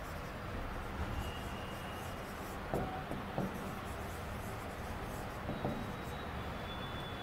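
Chalk writing on a chalkboard: faint scratching with a few light taps.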